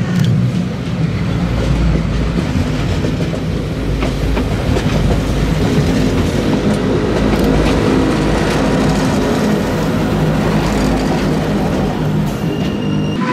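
Narrow-gauge Appenzeller Bahnen rack-and-adhesion train climbing the steep rack section on a tight curve, its wheels and running gear rumbling steadily as the motor car and coaches pass close by.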